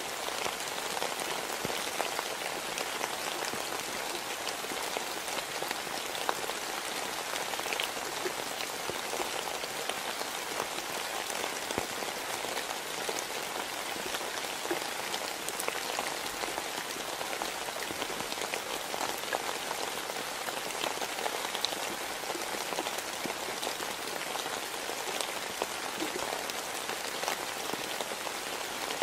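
Steady rain falling: an even hiss with many small drop ticks through it.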